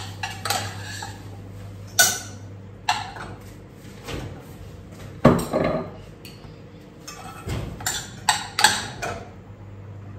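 Utensils clanking and scraping against a pot and plates as food is dished up, in irregular knocks and clinks, a few of them louder. A steady low hum runs underneath.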